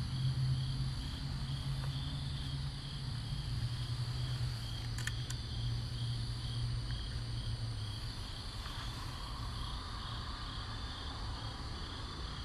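Crickets chirping in an even, steady rhythm, with a low hum underneath that fades about eight seconds in.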